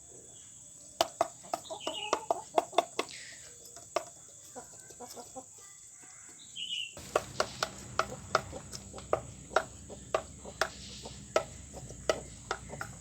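Pelung chickens clucking in many short, sharp notes, with a couple of brief high chirps. About seven seconds in, the background gets louder and the clucks come thicker.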